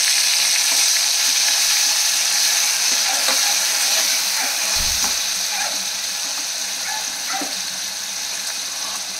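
Tomato purée and green chilli–garlic paste sizzling in hot ghee in a pressure cooker, stirred with a spatula, with faint scrapes against the pot. The sizzle slowly dies down as the wet paste cools the oil, and there is a short low thud about five seconds in.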